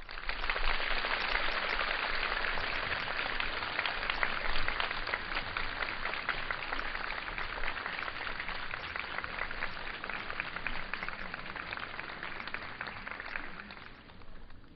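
Audience applauding. It starts abruptly, is loudest in the first few seconds, and tapers off near the end.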